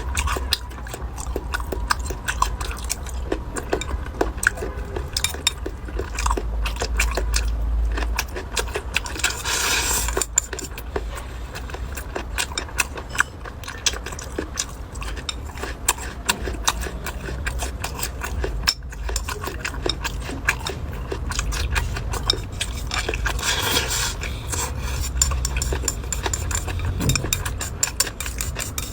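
Eating sounds: utensils clinking and tapping on bowls and dishes, with scattered short clicks of chewing and biting, over a steady low rumble.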